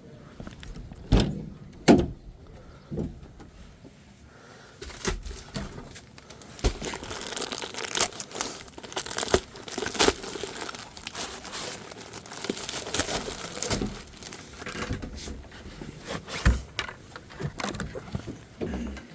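Plastic buckets knocking a few times, then a long stretch of gritty scraping, crunching and knocks: dirt being handled in buckets for backfilling a trench.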